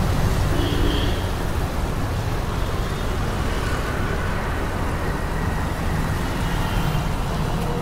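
Steady road traffic noise from passing vehicles on the street, a constant low rumble.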